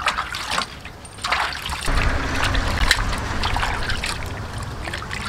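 Water sloshing and splashing in a large metal pot as hands scrub and rub a cow head clean, in irregular splashes that grow busier about two seconds in.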